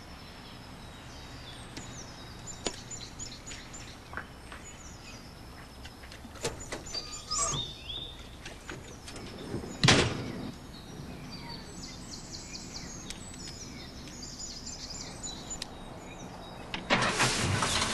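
Birds chirping over a quiet outdoor background, with a few light knocks and one loud thump about ten seconds in. A louder, fuller sound comes in about a second before the end.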